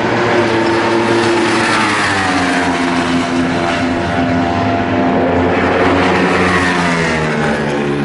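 Racing motorcycle engines running hard on the track, loud and continuous; the engine pitch drops about two seconds in, then rises and falls again near the end.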